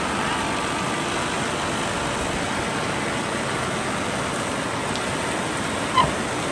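Shallow mountain stream rushing steadily over stones, with a brief sharp click about six seconds in.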